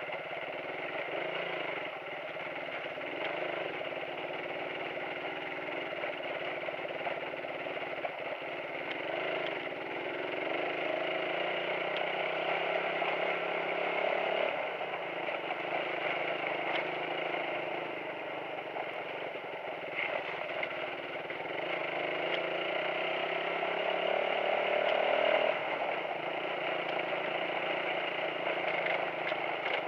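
Suzuki motorcycle engine running under way over a rough stony track, its note rising and falling with the throttle, with occasional knocks as the bike goes over the rocks. The engine is loudest a few seconds before the end.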